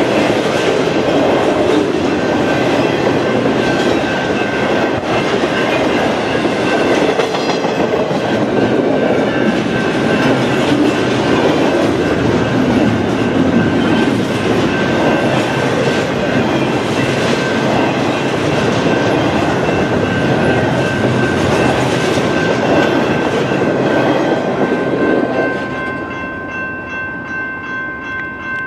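Intermodal freight train of double-stack container and trailer well cars rolling past, with a steady rumble and clatter of steel wheels on the rail joints. The sound drops away near the end as the last car goes by.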